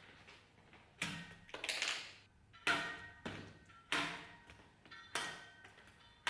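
A series of sharp strikes, about one a second and some in quick pairs, each followed by a short metallic ring.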